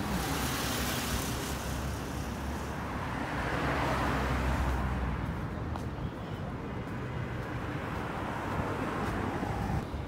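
Road traffic noise, swelling and fading around four seconds in, then settling to a quieter, duller steady rumble.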